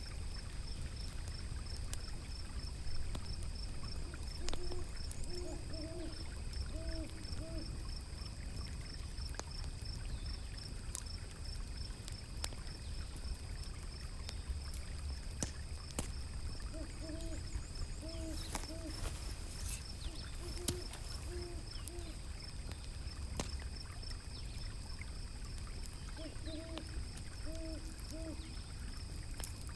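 An owl hooting in three short series of low, even hoots, over a steady low rush of water and the scattered crackle of a wood fire.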